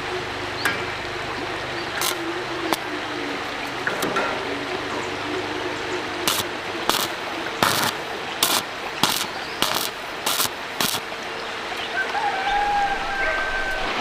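Steady rush of a stream, with a run of about eight sharp knocks spaced roughly half a second apart in the middle.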